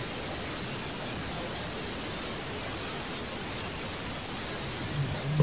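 A steady, even hiss with no distinct events. Just before the end a few brief low sounds rise over it.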